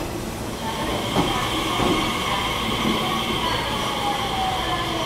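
Nishitetsu 'Tabito' sightseeing electric train rolling slowly along the platform. A motor whine falls steadily in pitch under a steady high tone, with a couple of wheel clacks in the first two seconds.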